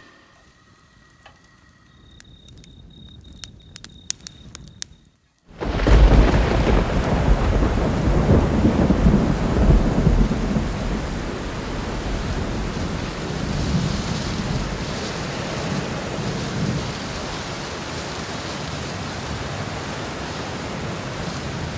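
Faint crackling of a wood campfire for the first five seconds or so, then heavy rain with rolling thunder starts suddenly. The thunder rumble is loudest just after it begins, then the storm settles into a steady downpour.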